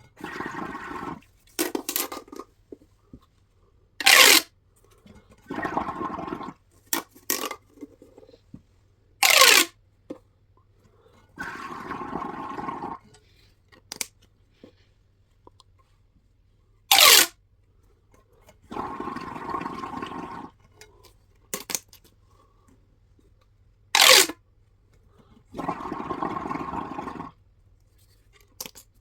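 Plastic pop tubes being stretched and squashed: buzzy, ratcheting stretches of a second or so alternate with short, loud pops, four of them several seconds apart. The pops are the loudest sounds.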